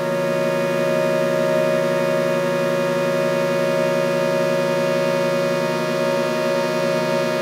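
Experimental drone music: many sustained tones layered at once, holding steady with little change, some of them with a fast flutter.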